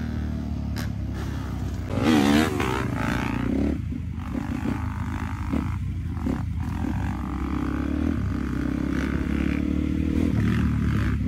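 Dirt bike engines running and revving as riders hold wheelies, with a loud, wavering burst of revs about two seconds in.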